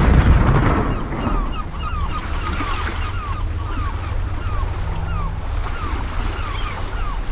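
Wind rumbling on a small onboard camera's microphone, loudest in the first second. Over it, a bird gives short falling chirps about twice a second.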